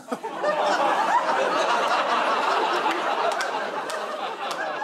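Studio audience laughing: a dense burst of many voices that starts at once, peaks about a second in and eases slightly toward the end.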